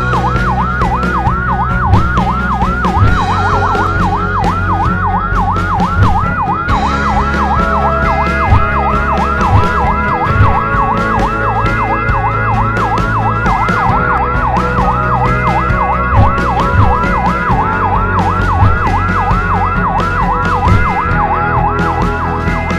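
Electronic yelp siren, a fast rising-and-falling wail repeating about three to four times a second without a break, over background music with a low, steady beat.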